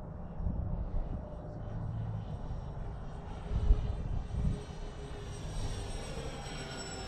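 Four brushless electric motors and propellers of a radio-controlled model B-24 Liberator, whining in flight. The whine swells from about halfway through and its pitch shifts as the plane passes, over a low rumble of wind on the microphone.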